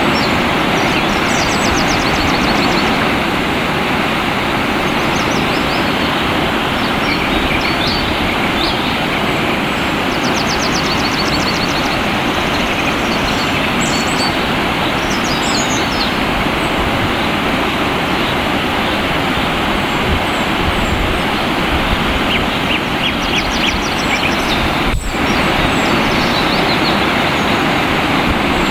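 Flowing water rushing steadily, with small songbirds chirping and giving short rapid trills high above it several times.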